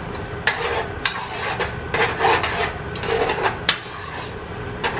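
A spoon stirring and scraping inside a cooking pot, with a few irregular knocks against the pot.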